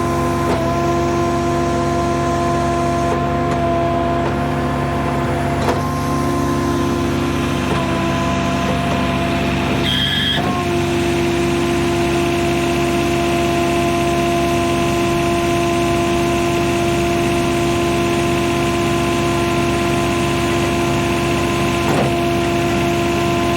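Diesel engine of a John Deere 710 backhoe running at a steady speed while the machine is driven onto a trailer, its pitch shifting slightly a few times. A short high beep sounds about ten seconds in.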